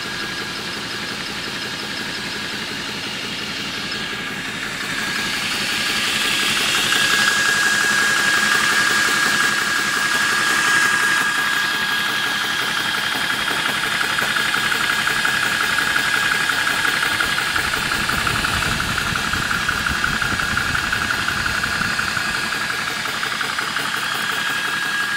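Apolo 300-bar portable high-pressure PCP air compressor running steadily, with a constant high tone over its pumping, as it fills an air rifle's reservoir. It gets louder about five seconds in.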